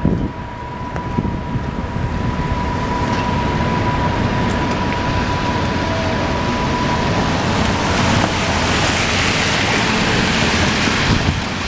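Street traffic on wet pavement, swelling to a loud tyre hiss from a passing vehicle in the last few seconds. A steady high tone sounds through the first half and stops partway in.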